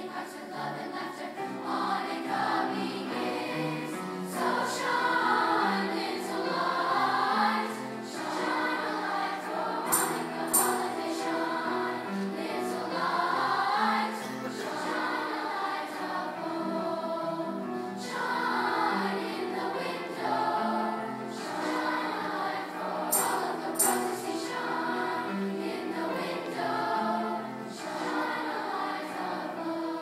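Youth choir singing a sustained, stepwise melody in many voices, with grand piano accompaniment. Twice, about a third of the way in and again about three quarters of the way in, a quick pair of sharp, bright clicks stands out above the singing.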